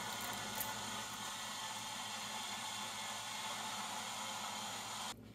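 Steady whirring hum with hiss, like a running fan or motor, which cuts off suddenly near the end; a faint click about half a second in.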